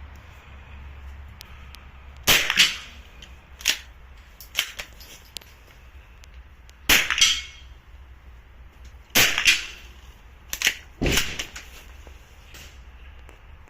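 .22 LR rifle firing single shots at irregular intervals, each a sharp crack. Several shots are followed about a third of a second later by a second crack.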